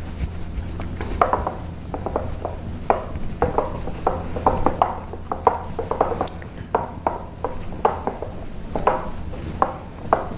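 Hands kneading pie-crust dough together into a ball in a glass mixing bowl: irregular light knocks and taps against the glass, a few a second, over a steady low hum.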